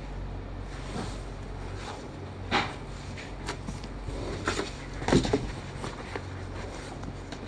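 Handling noise from a pair of Louis Vuitton LV Skate sneakers being turned over and set down on tissue paper: light rustling and a few soft knocks, the loudest about two and a half seconds in and just after five seconds, over a low steady hum.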